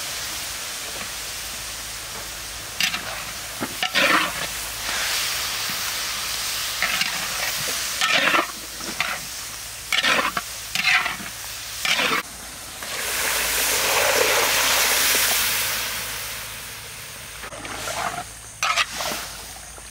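Food sizzling in a hot cooking pan while it is stirred, with a utensil scraping and knocking against the pan about a dozen times at irregular intervals. The sizzle swells louder for a few seconds past the middle.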